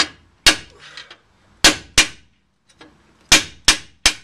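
Hammer blows on a long steel chisel made from a cut-off T-post, driving the worn pinion bearing out of a Dana 60 front axle housing. About seven sharp metallic strikes, mostly in pairs, each ringing briefly.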